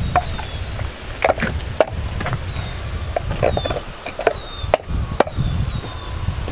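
Yellow plastic wheel chocks knocking and clattering as they are set in against a travel trailer's tire: about half a dozen sharp knocks at uneven intervals.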